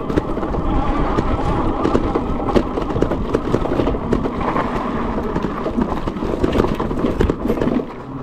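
Goat Power Motor Goat fat-tyre electric bike climbing a steep dirt trail: tyres crunching and knocking over gravel and ruts under a steady rumble, with no pauses.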